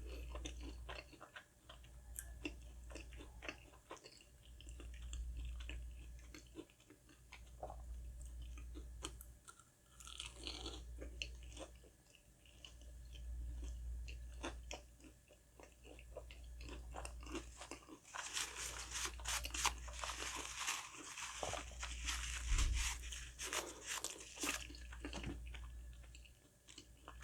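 Close-miked chewing of crispy breaded fried food, with many small crunches and mouth clicks; the crunching gets denser about two thirds of the way through.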